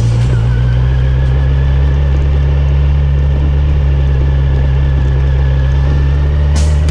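A vehicle engine running steadily, a loud, even low drone with a faint steady whine above it. A short burst of hiss comes just before the end.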